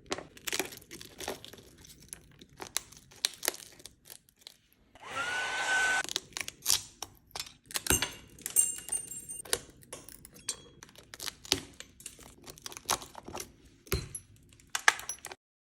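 An iPhone 13 Pro Max's laser-loosened back glass being tapped and crunched off in scattered clicks and small cracks. About five seconds in, a small blower spins up and runs for about a second with a rising whine.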